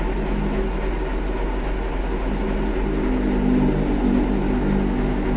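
Steady mechanical hum of a running engine, its pitched drone growing a little stronger about two seconds in.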